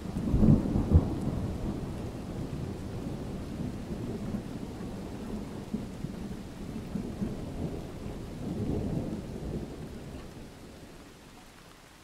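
A thunderclap breaks suddenly at the start and rolls on as a long low rumble, swelling again about nine seconds in and dying away near the end, over steady rain.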